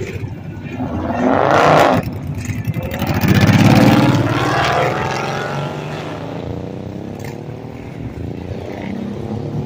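Dodge Charger accelerating hard away: the engine revs climb, drop about two seconds in at a gearshift, then climb again louder and fade as the car pulls off, with motorcycle engines running near the end.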